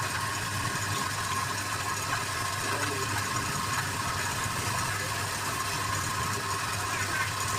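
Wood lathe running steadily, an even motor hum with no change in speed.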